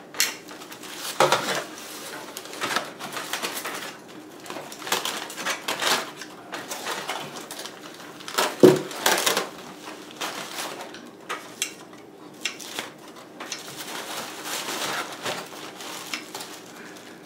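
Aluminium foil crinkling and rustling as a foil wrap is pulled open with metal tongs, with scattered clinks of metal on metal. The loudest is a single clank about eight and a half seconds in.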